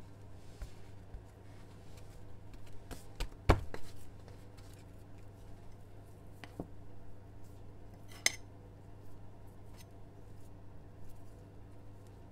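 Metal spatula scraping and clicking against a ceramic bowl while scooping sweet bean paste, with a loud knock about three and a half seconds in and a sharp ringing clink about eight seconds in. A low steady hum runs underneath.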